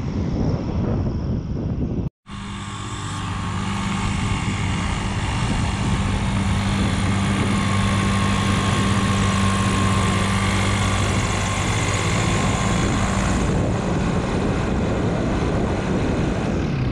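Microlight aircraft engine and propeller running steadily with an even low hum, fading in after an abrupt cut about two seconds in. Before the cut there is a rough noisy rush.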